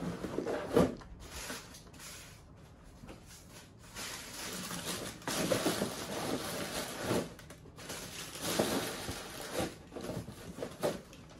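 Cardboard boxes and plastic packaging being handled: a sharp knock about a second in, then bursts of rustling and scraping a second or two long, with a few small clicks near the end.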